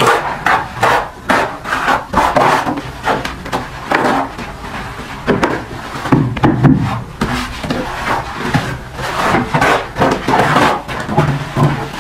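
Plastering trowels and floats working wet cement mortar onto a brick wall: repeated irregular scraping strokes, about one or two a second, as the mortar is thrown on and spread.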